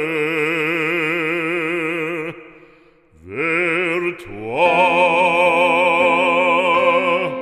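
Operatic singing: a solo voice holds a long note with wide vibrato, breaks off about two seconds in, then rises into another long held note.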